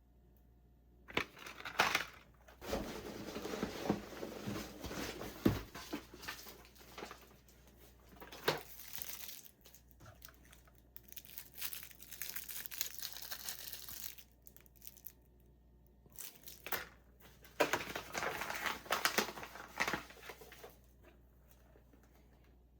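Hands unpacking a parcel: packing material and cardboard crinkling, crushing and tearing in irregular spells, with a few sharp knocks.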